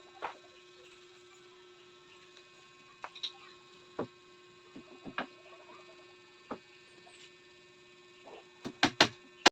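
Steady electrical hum under scattered light knocks and taps, with a quick run of louder knocks near the end.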